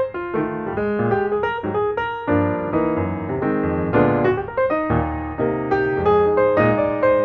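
Background piano music, a run of quick notes over chords at a steady loudness.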